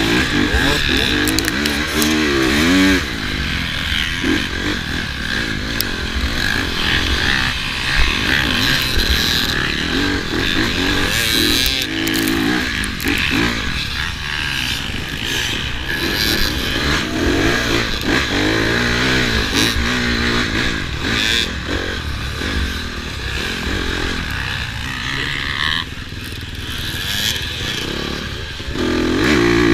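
Dirt bike engine revving up and down repeatedly as it is ridden hard over an off-road race course, with scattered clicks and knocks.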